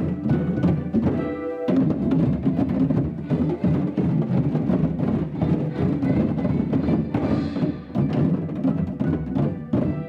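Music with prominent percussion: a dense beat of drum strokes over held notes.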